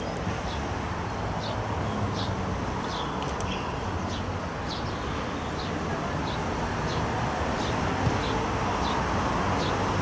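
Steady background noise of a football match crowd and ground, with short high chirps repeating about once or twice a second.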